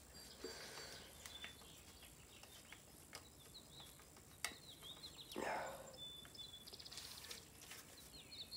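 Quiet room with faint bird chirps in the background, a few light clicks and a brief rustle about five seconds in, from handling parts inside the computer case.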